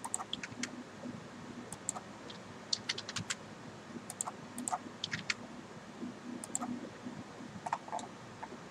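Computer keyboard keys and mouse buttons clicking irregularly as commands are typed in and options picked.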